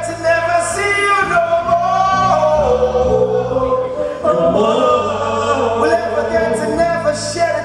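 Live band music with several voices singing together over a steady bass line.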